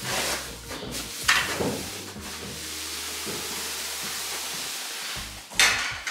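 Background music with the rustling swish of loose hay being tossed by a pitchfork. There are sharper swishes near the start, about a second in and again near the end.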